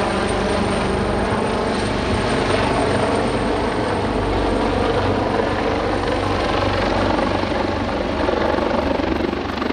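Water-dropping firefighting helicopter flying low overhead, its rotor and turbine engines running steadily and loud.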